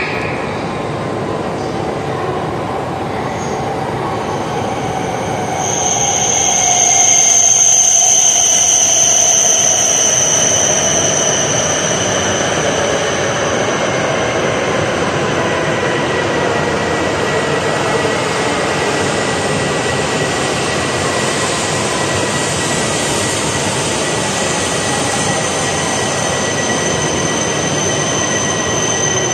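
E5 series Shinkansen, coupled to an E3 series set, running into an underground station platform and slowing. There is a continuous rush of train noise, loudest a few seconds in as the leading cars pass. A steady high-pitched squeal starts about six seconds in, and further squeal tones join partway through as the train creeps along the platform.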